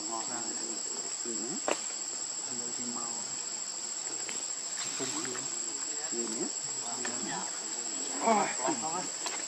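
Steady, high-pitched drone of insects, carrying through unchanged, with a brief louder pitched sound over it near the end.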